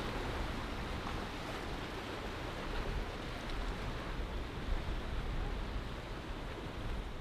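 Steady wind and surf noise from a rough, choppy sea, with wind rumbling on the microphone.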